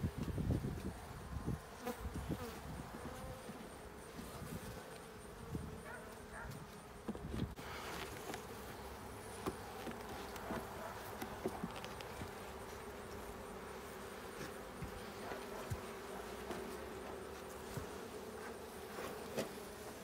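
Honeybees buzzing in a steady hum over an opened hive, with scattered knocks and clicks from handling. The beekeeper calls the colony booming for a winter hive.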